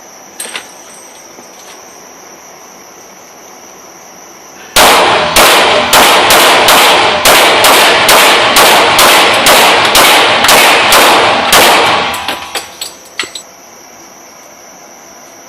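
Two .40 S&W Glock pistols fired together in a rapid string of about twenty shots, roughly three a second, for some seven seconds, followed by a few lighter knocks as the firing stops.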